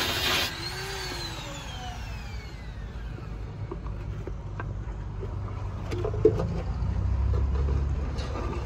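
An angle grinder cutting a truck's steel exhaust pipe stops about half a second in, and its disc spins down with a falling whine over the next two seconds. After that there is a low rumble that swells near the end, and a few knocks, one sharp one about six seconds in.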